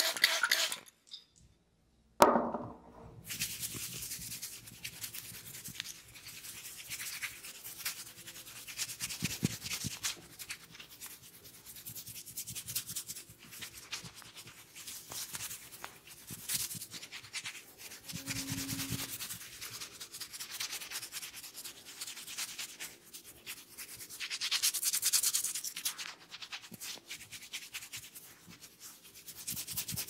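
Fingers rubbing and scrunching through oiled hair on the scalp, a close, continuous crackling rub full of fine crackles, louder for a moment near the end. A brief silence about a second in.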